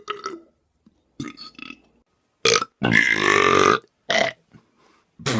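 A person belching on purpose: one long, loud burp about three seconds in, lasting about a second, with a few brief, shorter sounds before and after it.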